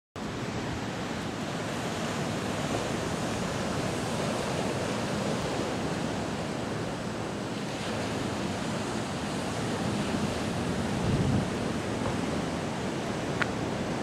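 Caribbean surf breaking on a rocky shore, a steady rushing wash of waves, with onshore wind blowing across the microphone and a stronger low gust a little after eleven seconds.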